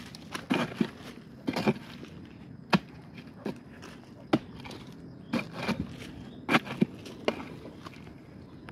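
A digging tool chopping into a termite mound while it is being dug open, about a dozen separate strikes at uneven spacing.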